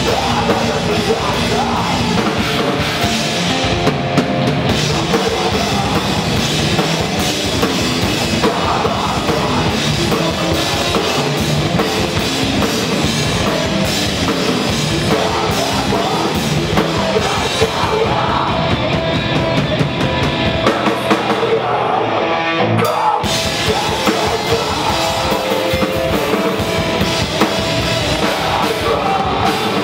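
Live rock band playing loud: full drum kit with electric bass and guitars. About two-thirds through, the cymbals drop out for a few seconds and the music stops for an instant, then the full band comes back in.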